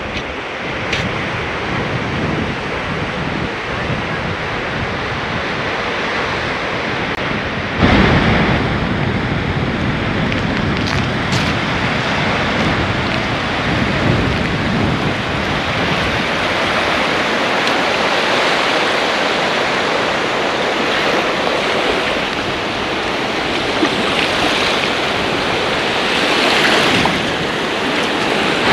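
Small waves breaking and washing up on a sandy beach, a steady rushing that swells and eases, with wind buffeting the microphone and one sudden louder rush about eight seconds in.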